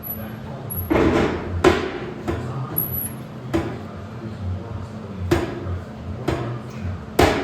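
Metal knocking and clanking in a workshop: about seven sharp knocks spread irregularly, the loudest near the end, over a steady low hum.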